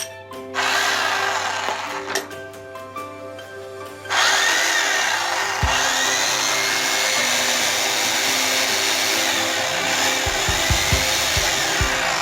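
Makita HM0830 electric demolition hammer running on a test run after repair, a loud, dense, steady clatter. It starts about half a second in, drops off briefly around four seconds and comes back louder, with a few dull thumps near the end.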